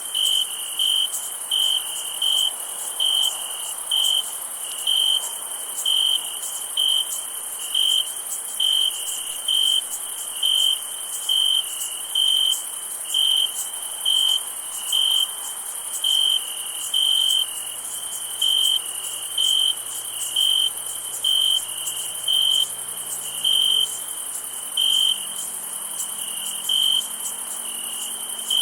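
A cricket chirping loudly and evenly, about once a second, over a steady high-pitched insect chorus. A faint low hum comes in a little past the middle.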